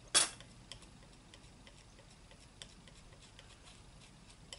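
Palette knife clicking and scraping against the palette while mixing oil paint: one loud, short scrape just after the start, then a few faint, irregular ticks.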